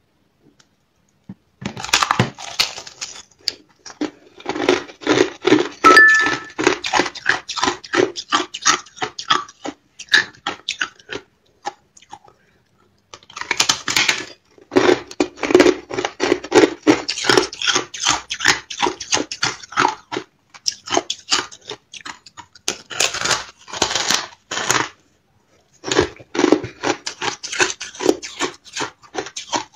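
Thin ice being bitten and chewed, several crunches a second in long runs broken by short pauses.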